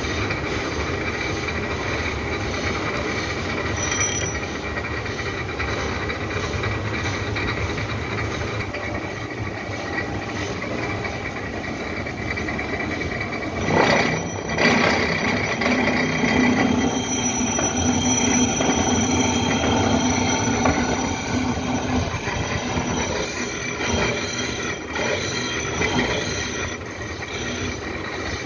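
Horizontal milling machine running a toothed side-milling cutter through a metal dog-clutch blank, cutting the clutch's jaw slots: a steady machine drone with a high whine. The cutting grows louder and harsher from about halfway through, then eases off near the end.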